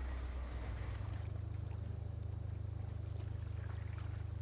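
A low, steady rumble that steps up in pitch about a second in, with a few faint clicks over it.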